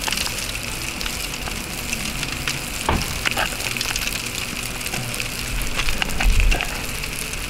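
Carp fillets and butter sizzling in a tin-foil packet on hot campfire coals: a steady hiss sprinkled with small crackles, and a low rumble about six seconds in.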